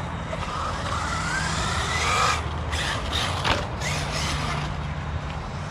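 Electric motor of a 1/8-scale ARRMA Notorious RC car whining up in pitch as it accelerates, followed by a single sharp knock about three and a half seconds in.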